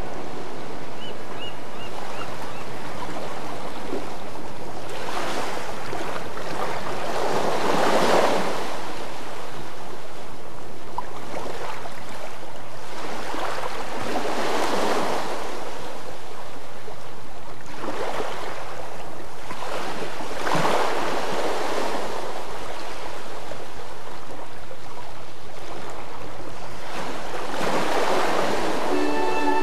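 Ocean waves washing onto a shore, the rush of surf swelling and falling away four times, several seconds apart.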